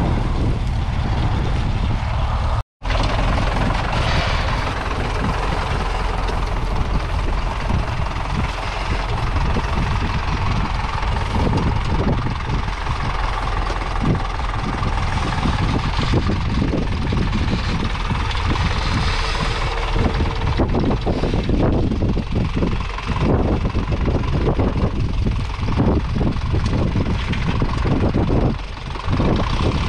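Massey Ferguson 35's three-cylinder diesel engine running steadily while pulling a two-furrow mounted plough through the ground. The sound cuts out completely for a split second about three seconds in.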